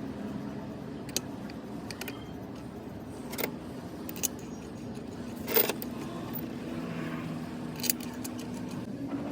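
Metal hand tools clinking against metal engine parts in a few scattered sharp clicks, the loudest about halfway through. Under them runs a steady low mechanical hum.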